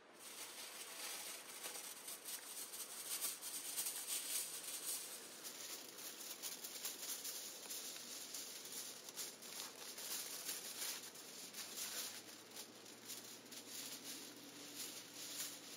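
Shiny silver wrapping film crinkling and crackling as it is pulled off its roll and wrapped around wooden poles, a dense, uneven rustle of many small crackles.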